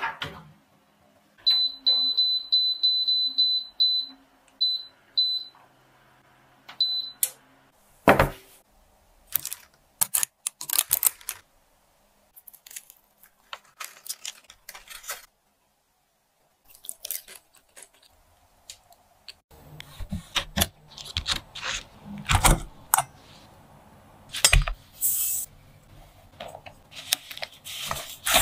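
Hauswirt i7 countertop oven shut with a click, then its control panel beeping: a fast string of short high beeps, then a few single beeps as it is set. Later, a spoon breaking into the crisp caramelized sugar crust of a roasted sweet potato with small crackles, and a whisk scraping and stirring dry ingredients in a steel bowl.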